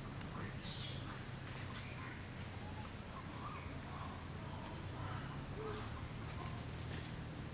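A steady high-pitched drone of insects, with faint short chirps scattered through and a low steady hum underneath.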